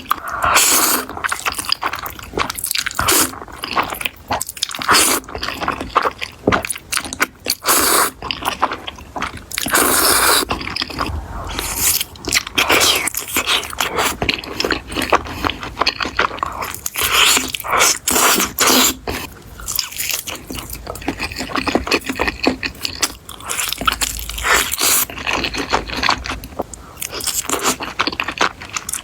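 Close-miked eating: a person biting and chewing crunchy food, with dense, irregular crunches throughout.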